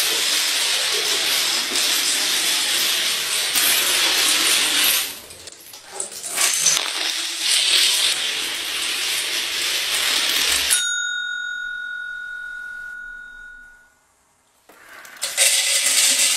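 A long chain of domino blocks toppling one after another: a fast, continuous clatter that dips briefly about five seconds in. About eleven seconds in the clatter stops and a bell dings once, its tone fading over about two seconds. After a short silence the clatter starts again near the end.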